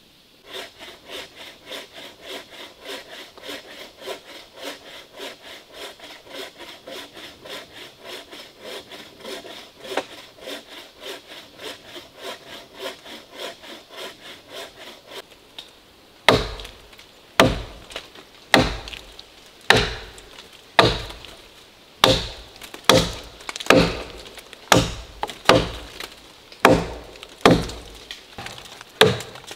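Wood being sawn with quick, even strokes, about three a second. About sixteen seconds in this gives way to a hatchet chopping into a fallen log: loud, sharp blows about one a second.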